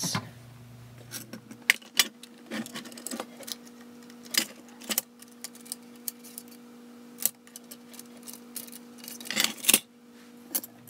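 Small metal tools handled on a workbench: a steel drill-bit gauge and a hinged metal drill-bit case giving scattered clicks and clinks as a drill bit is picked out. A louder clatter comes near the end as the case lid is shut.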